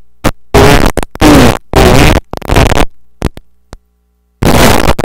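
A man's voice through an overloaded microphone, heavily distorted and garbled, coming in loud stretches with sudden gaps of dead silence as the audio drops out.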